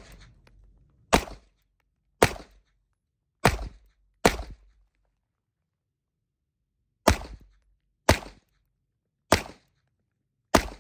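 Handgun shots fired one at a time at a steady pace, each sharp and quickly cut off. There are four shots about a second apart, a pause of nearly three seconds while the shooter goes down to a kneeling position, then four more. This is a timed qualification string of five rounds standing and five kneeling.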